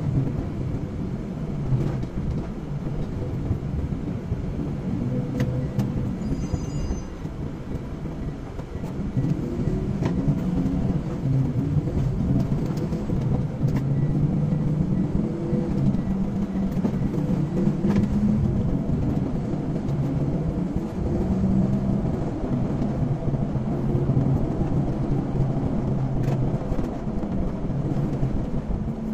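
Car driving on the road: steady engine and road noise, the engine note rising and falling as the car slows and picks up speed, a little louder from about nine seconds in.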